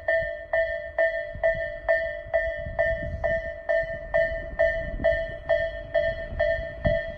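Tobu Railway level-crossing warning bell (the electronic 'Tobu sound A' type) ringing a steady, repeating ding about twice a second, the crossing's alarm that a train is coming. A low rumble of the approaching train builds underneath from about two and a half seconds in.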